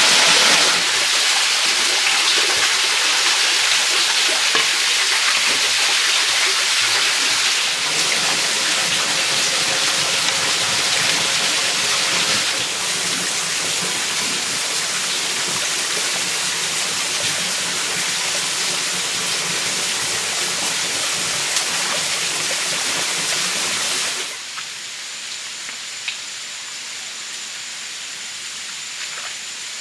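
Running water of a rocky forest stream rushing over stones, a steady rush. It turns much quieter about 24 seconds in, leaving a softer flow.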